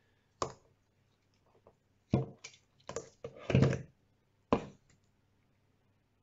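A bicycle wheel being handled and set down on a digital kitchen scale: a handful of separate knocks and clatters from the rim, spokes and hub, the sharpest about half a second in and again near the end.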